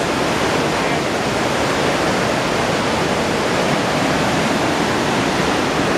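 Magog River white water pouring over a dam and churning through the gorge, a loud, steady rushing roar.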